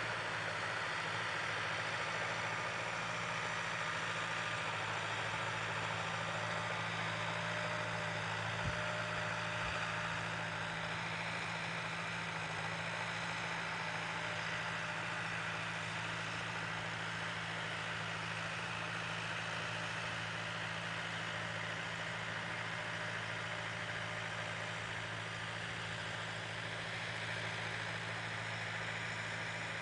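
Valtra tractor's diesel engine running steadily under load as it pulls a seed drill across the field: an even, unchanging drone.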